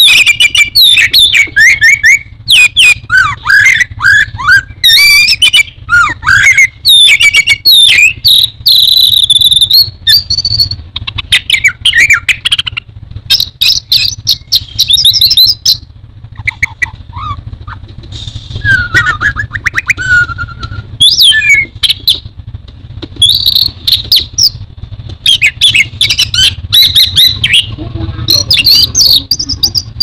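Orange-headed thrush (anis merah) in full song: a long, loud run of rapid, varied whistled phrases with fast trills and sweeping notes, broken by short pauses, over a faint low hum.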